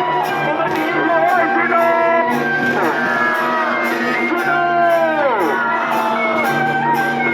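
Loud music with a steady beat, held notes and steep downward pitch slides, over a constant low drone.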